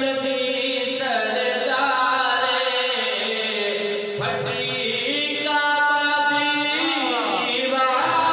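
A man's voice chanting an Urdu devotional manqabat in long, drawn-out notes that slide up and down between pitches.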